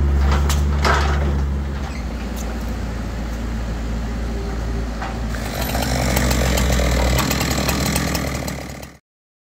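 Chainsaw running and cutting into a fallen oak log, getting louder and brighter about five seconds in as it bites into the wood. It cuts off abruptly near the end.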